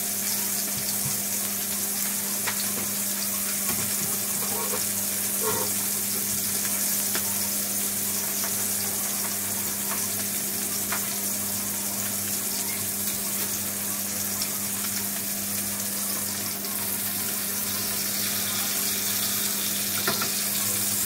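Whole needlefish shallow-frying in oil in a frying pan: a steady sizzle with occasional small pops and crackles.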